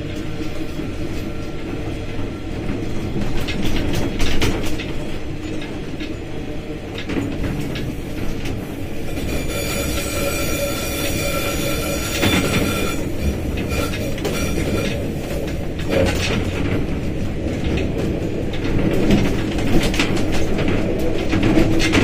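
Diesel locomotive running along the track with a steady engine rumble and wheels clicking over rail joints. A high wheel squeal comes in for a few seconds around the middle as the train takes a curve.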